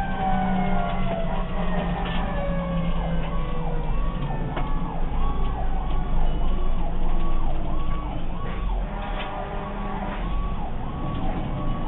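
Fire apparatus sirens sounding on a response: one siren slides steadily down in pitch over the first few seconds while another cycles quickly up and down, about one and a half times a second, over the steady low running of the truck's engine.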